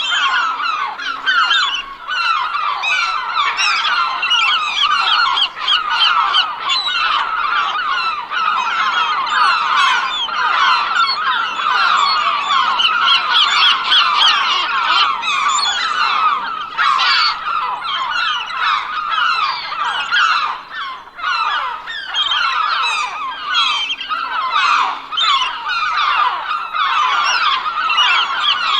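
A flock of gulls calling all at once: many short, overlapping squawks and cries with no let-up.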